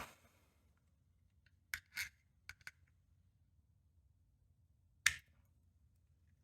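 A few light metallic clicks, then a single louder click about five seconds in: small hand tools such as hex keys being handled against a padlock that is being taken apart.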